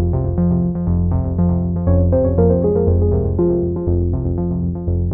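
Background instrumental music: a stream of quick repeated notes over a steady bass line.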